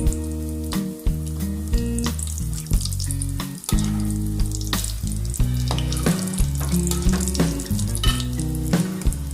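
Background music with chords and a beat, over the sizzle of breaded chicken rolls deep-frying in hot oil.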